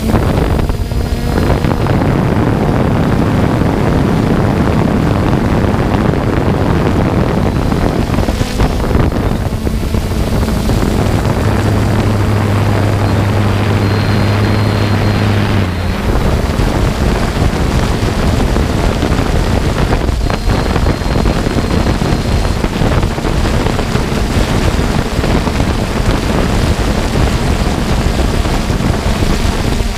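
3DR Solo quadcopter's electric motors and propellers running loud and steady in flight, heard from the camera on board with wind buffeting the microphone.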